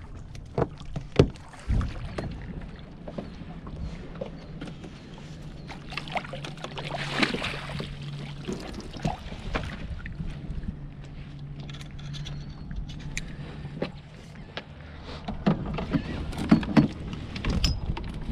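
Handling noise aboard a plastic fishing kayak: scattered knocks, clicks and thumps, with a brief rush of noise about seven seconds in.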